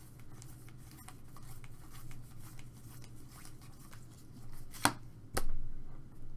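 Stiff chrome baseball cards sliding and ticking against one another as a stack is flipped through by hand, with two sharper snaps of card edges about five seconds in.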